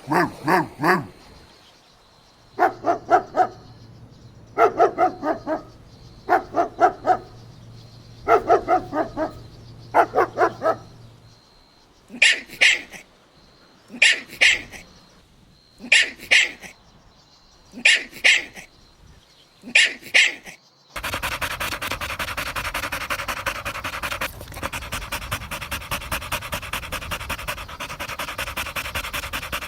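A dog barking in quick bursts of three or four, about every two seconds, then short high-pitched yelps at the same pace, then rapid, steady panting through the last third.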